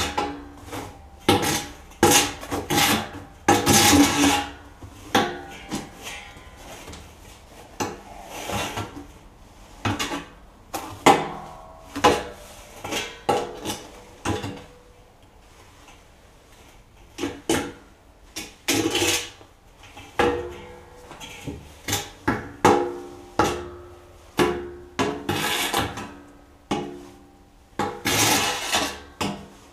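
A hand tool knocking and scraping against the inside of a steel oil barrel: irregular clanks and rubs, some with a short metallic ring from the drum.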